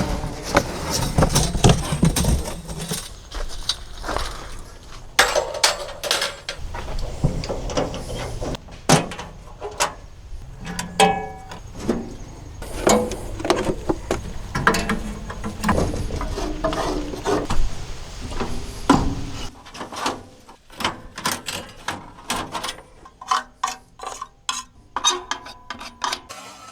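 An irregular run of knocks and metallic clanks over a low rumble, thinning to fewer, quieter clicks about two-thirds of the way through.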